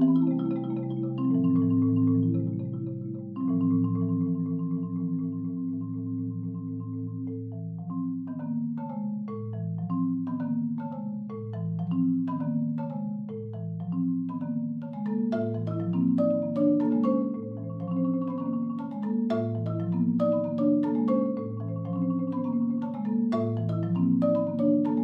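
A Marimba One concert marimba played solo with mallets on its wooden bars. For the first eight seconds or so it sustains rolled chords, then it moves into a running line of separately struck notes over a repeating low bass note.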